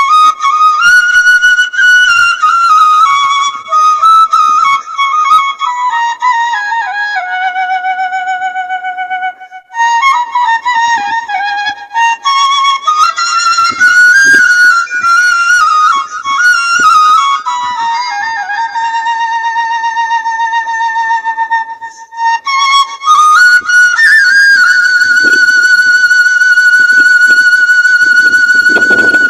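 Music: a solo flute melody played in long flowing phrases, with two short breaks, the last phrase settling on a long held note.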